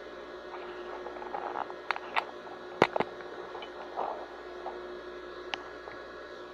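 Handling sounds during sewing work: brief rustling and several sharp clicks, the loudest pair about three seconds in, over a steady electrical hum.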